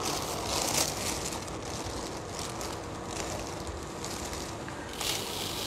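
Rice grains shifting and rustling with a plastic bag crinkling as a small mud measuring cup is dug into a bag of rice and filled. The hiss swells about half a second in and again about five seconds in.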